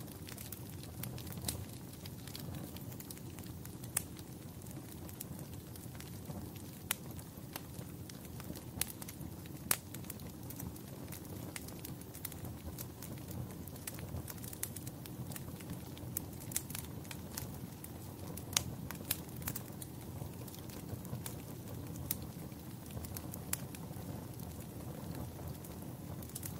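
Wood fire burning in a fireplace, a steady low hiss under frequent sharp, irregular crackles and pops.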